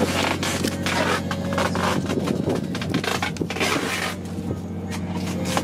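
Hairtail being handled and packed by hand into a cooler: irregular scraping and rustling of fish against the plastic and styrofoam, over the steady drone of the boat's engine.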